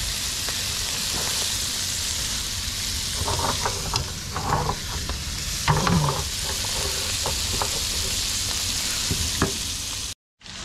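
Giant river prawns (cherabin) and red claw crayfish sizzling in butter in a frying pan, a steady high sizzle. Tongs and the pan clatter against the shells in a few bursts around the middle as the shellfish are turned and the pan is shifted. The sound cuts out briefly near the end.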